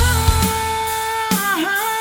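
Music: a rock song with a held lead note that dips in pitch and comes back up about one and a half seconds in.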